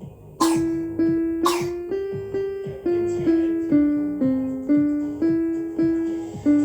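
A melody of single plucked notes on a string instrument, about two a second, each struck sharply and left to fade. Two short hissy strokes sound in the first second and a half.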